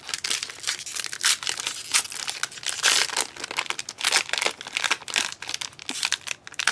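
Trading card pack wrapper crinkling and tearing as it is handled and opened, a dense run of crackles.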